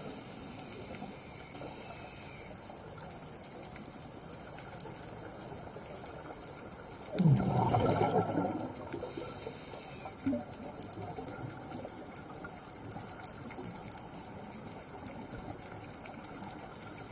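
Underwater recording: a steady low hiss, with a burst of bubbling about seven seconds in from a scuba diver's exhaled air.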